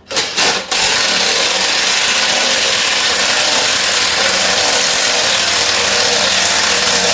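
A powered jack running steadily, with a loud hiss over a low hum, as it raises the motorcycle's rear wheel into the swing arm. A few short clicks come just before it starts, about a second in.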